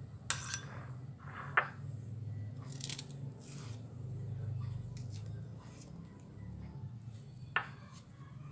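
A banana being sliced with a knife into a small glass bowl: three sharp clinks on the glass, spread out, with soft cutting sounds between them. A steady low hum runs underneath.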